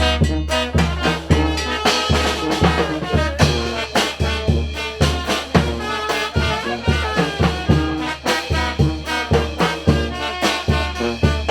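Mexican brass band (banda) playing a brisk dance tune: trumpets and trombones carry the melody over a steady, deep bass beat and drums.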